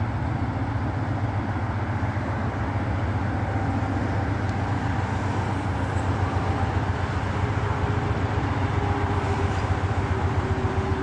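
Train running, a steady low rumble with a fast pulse in it, and a faint steady tone joining in about halfway through.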